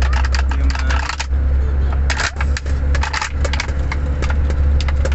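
Steady low rumble of a car's engine and tyres heard inside the cabin while driving, with frequent irregular light clicks and rattles on top.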